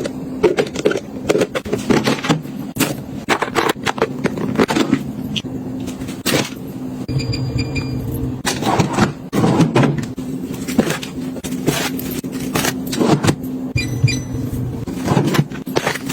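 Household items being handled and set down, a quick run of clicks, taps and knocks, over a steady low hum.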